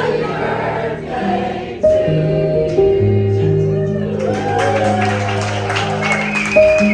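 Background music: a choir singing gospel-style over long held chords that change every second or two.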